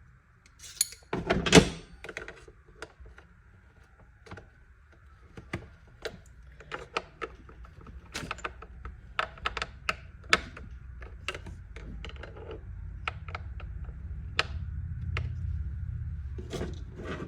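Small hard clicks and knocks of tool bits and hand tools being handled and sorted to find a Torx bit, with a heavier knock about a second and a half in. A low rumble builds in the last few seconds.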